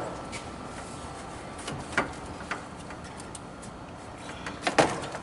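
Scattered clicks and knocks of plastic and metal parts being shifted while the radiator and fan assembly are worked out of a car's engine bay, the loudest knock near the end.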